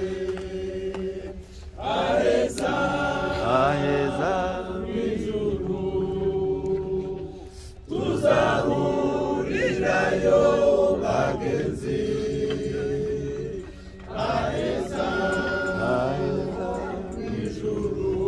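A group of mourners singing together at a graveside, in slow phrases of long held notes. A new phrase starts about every six seconds.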